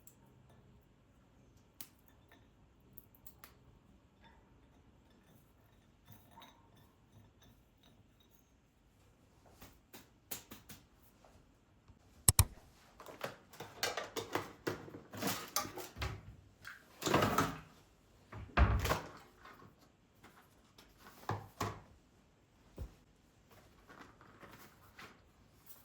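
Household objects being handled in a small room: a sharp click about halfway in, then a run of knocks, clatter and rustling, loudest in two short bursts soon after.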